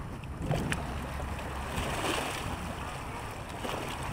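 Choppy lake water lapping against a rocky shore, a steady wash over a low rumble, with a couple of short clicks about half a second in.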